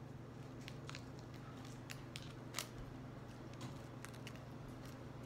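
Small paper and sticky-tape pieces being folded and pressed by hand, making scattered faint crinkles and ticks, with one sharper click a little past halfway, over a steady low hum.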